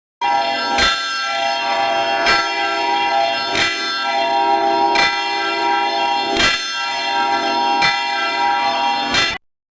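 Church bell struck seven times at an even pace, about once every second and a half, each stroke ringing on into the next. The ringing cuts off suddenly near the end.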